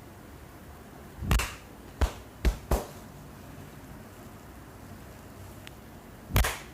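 Five sharp percussive hits from an Indian barber's head and neck massage over a steady hiss. One comes about a second in, three follow in quick succession about a second later, and a last one lands near the end.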